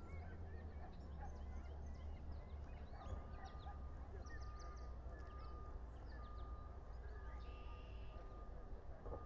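Many short, high bird chirps and whistles over a steady low rumble, with a faint, evenly repeated whistle-like tone from about three seconds in and a brief buzzy call about seven and a half seconds in.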